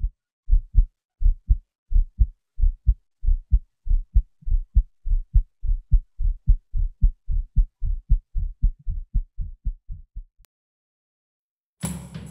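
Heartbeat sound effect: paired low lub-dub thumps that speed up and fade out about ten seconds in. Music with drums starts near the end.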